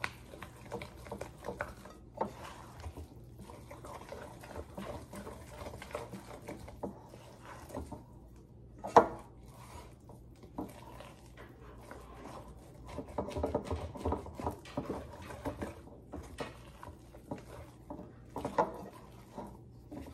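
A wooden spoon stirs thick pumpkin purée and dry vanilla pudding mix in a glass mixing bowl, making wet squishing with irregular scrapes and taps against the glass. There is one sharper knock about nine seconds in.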